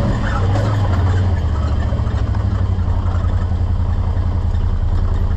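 Off-road vehicle's engine running steadily as it drives along a dirt trail, a low steady rumble with ground and drivetrain noise over it.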